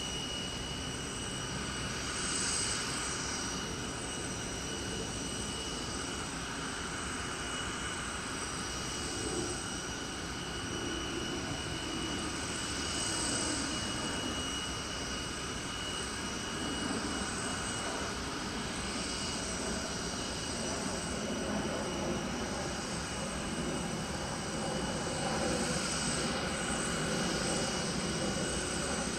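Jet airliner engines running steadily: an even rumble with a constant high-pitched whine over it.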